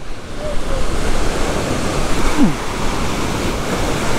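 Ocean surf: waves breaking and washing through the shallows, a steady loud rushing noise.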